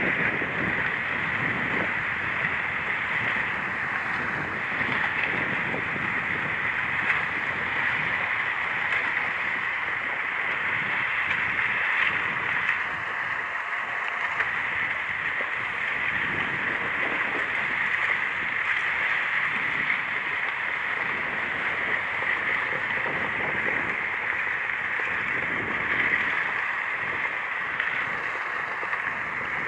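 Steady rushing hiss of a kayak gliding through the water, with irregular low buffeting of wind on the microphone.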